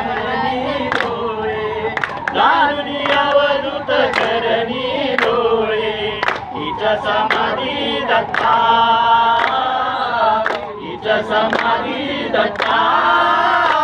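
A group of men and women singing a Marathi devotional aarti together, with sharp handclaps keeping time.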